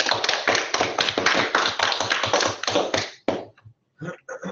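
A small group clapping for about three seconds, then dying away.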